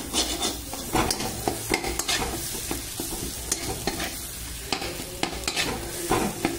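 A spatula scraping and stirring egg bhurji around a pan in repeated strokes, a few a second, over the light sizzle of the eggs frying in oil.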